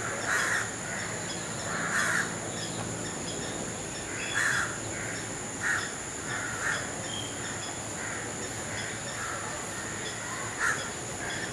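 Bird calls: about seven short, harsh, caw-like calls at irregular intervals, the loudest in the first half, over a steady high-pitched whine.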